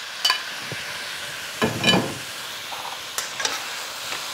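Meat and vegetables sizzling in a hot carbon steel wok as the meat is tipped in and stirred with a metal spatula. There are a few knocks and scrapes of metal utensils against the pan and plate, the loudest about two seconds in.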